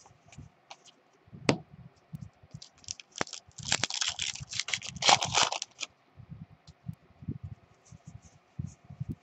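Foil wrapper of a baseball card pack being torn open and crinkled: a dense crackling that lasts about two seconds in the middle. Before and after it come soft scrapes and taps of cards being handled.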